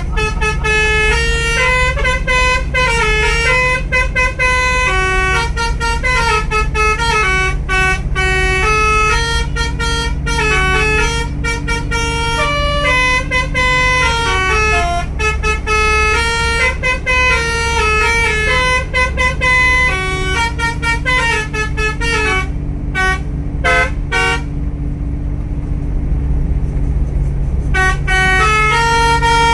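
Bus telolet basuri horn playing a tune in quick stepped notes, over the steady running of the bus's engine. The horn sounds duller for a few seconds near the end.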